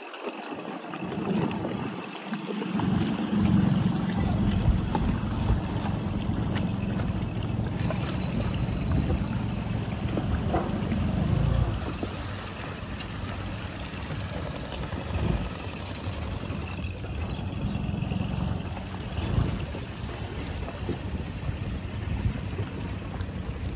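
Wind buffeting the microphone over lapping water, a low uneven rumble that swells and eases.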